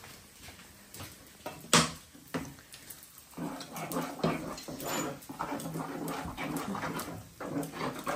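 A small metal utensil stirring wet besan (gram flour) batter in a plastic tub, a quick run of wet scraping and slapping strokes from about three seconds in, as the batter is thinned with added water. A single sharp knock about two seconds in is the loudest sound.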